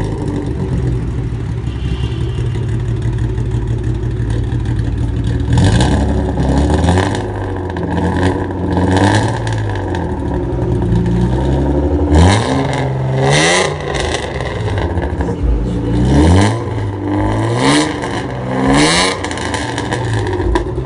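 BMW E36 sedan's engine running through a newly fitted Varex valved exhaust with twin tailpipes. It idles steadily for about five seconds, then is revved in a series of short blips that rise and fall in pitch, the biggest rev about halfway through.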